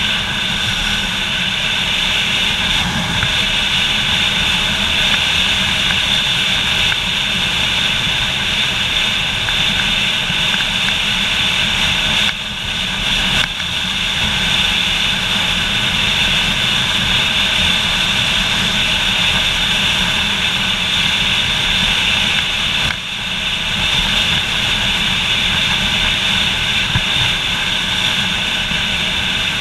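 Motorcycle riding at steady speed: wind rushing over the camera mixed with the engine's running note, loud and unbroken apart from two short drops in level, about twelve and twenty-three seconds in.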